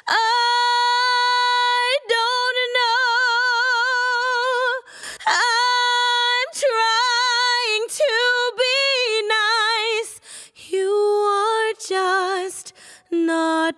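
A woman singing long held notes with wide vibrato. The first note is held about five seconds, and the later notes are shorter and step down in pitch near the end.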